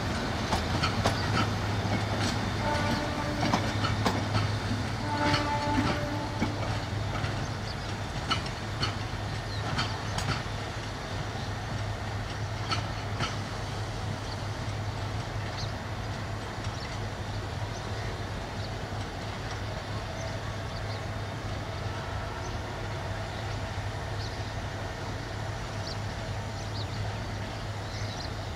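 Metre-gauge passenger train coaches rolling away over the rail joints and points, wheels clicking and clacking over a steady low rumble. The clicks thin out and the sound fades after about ten seconds as the train recedes.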